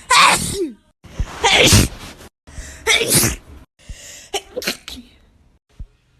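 A run of about four human sneezes one after another, each a short loud burst, with abrupt breaks between them.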